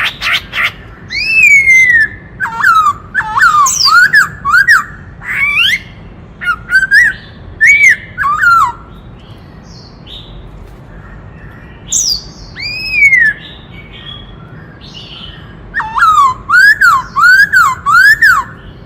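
Black-throated laughingthrush singing: loud whistled phrases of quick, arched rising-and-falling notes, in bursts with pauses of a few seconds between them.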